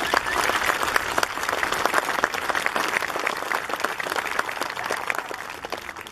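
Audience applauding, a dense patter of many hands clapping that slowly fades toward the end.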